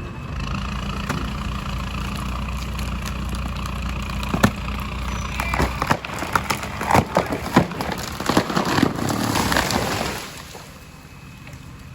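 Engines running steadily while a tree gives way: a sharp crack of wood about four seconds in, then a dense run of cracking and snapping as the trunk and branches break and crash down, after which the level drops.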